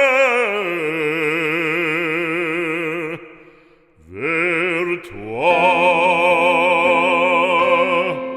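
Operatic solo voice holding long notes with a wide vibrato at the close of a French sacred song. The note slides down about half a second in, fades out around three seconds, and two more held notes follow.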